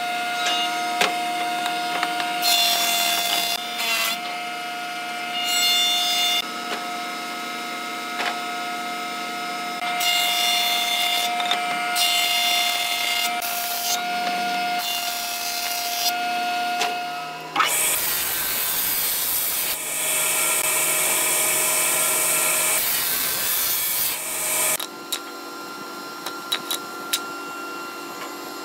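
Marunaka thickness planer running with a steady hum as hardwood blocks are fed through, each pass a burst of cutting noise lasting a second or two. Past the middle, a louder, hissier machine noise runs for about seven seconds. Then it goes quieter, with a few light knocks of wooden blocks being set down.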